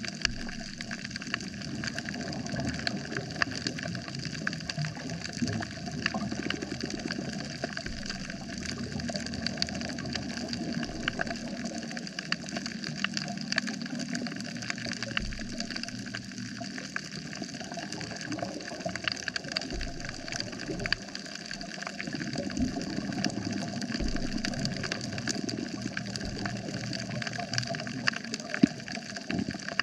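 Underwater coral reef soundscape: a constant dense crackle of tiny clicks, the sound typical of snapping shrimp, over a low rumble of moving water.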